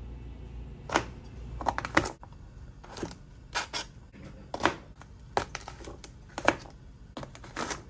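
Chef's knife chopping through a bunch of green beans onto a plastic cutting board: a series of sharp, separate knocks, roughly one a second.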